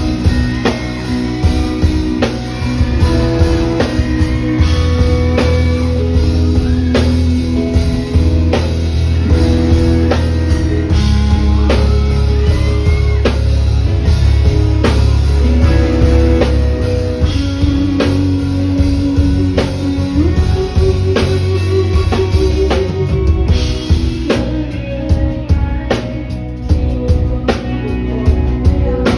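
Live band playing a rock song: drum kit keeping a steady beat under bass and guitar.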